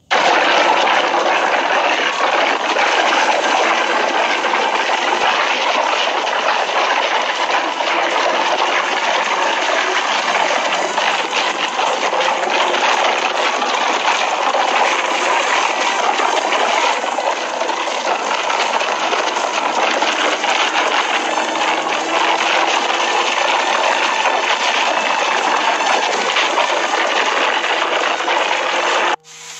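Steady roar of wind and road noise on a helmet-mounted 360 camera's microphone at highway speed on a Kawasaki ZX-14R, with a faint engine drone under it. The roar cuts off suddenly just before the end.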